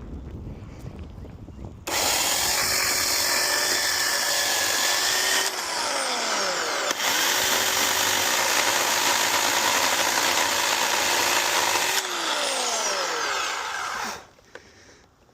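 Chainsaw running at full speed from about two seconds in. Its pitch falls as the trigger is let off, then climbs back up about seven seconds in, and it winds down to a stop near the end.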